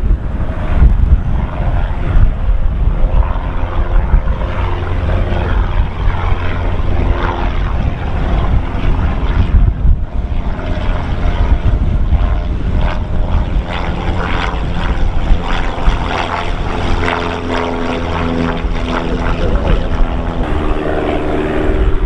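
Light single-engine propeller plane flying low overhead, its engine and propeller drone growing clearer in the second half. Strong wind buffets the microphone with a steady low rumble throughout.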